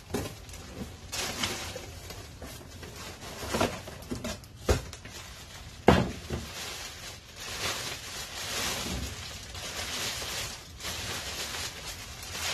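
Clear plastic bags rustling and crinkling as items are unwrapped and lifted out of a cardboard box, with two sharp knocks about five and six seconds in.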